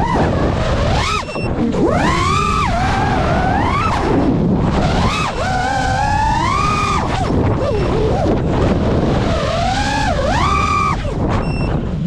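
FPV quadcopter's brushless motors and propellers whining, the pitch swooping up and down sharply every second or two as the throttle is punched and eased. Under it, a steady rush of wind on the drone's onboard microphone.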